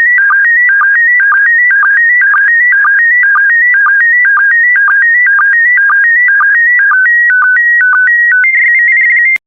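Slow-scan TV (SSTV) image signal in PD120 mode: a loud electronic tone stepping between pitches, each scan line marked by a short low sync dip, repeating about twice a second. Near the end the steps slow, then a steady higher tone holds for a moment and cuts off suddenly as the transmission ends.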